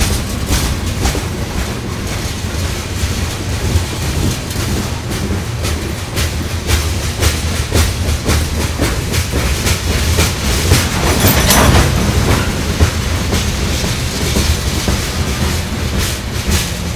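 Union Pacific freight train's tank cars and covered hoppers rolling past close by: a steady low rumble with wheels clicking over the rail joints, growing louder for a moment about eleven seconds in.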